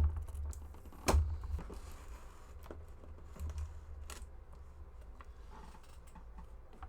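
Hands working open a toy figure's cardboard and plastic packaging, pulling off tape: two sharp snaps, at the start and about a second in, then softer scattered rustles and taps.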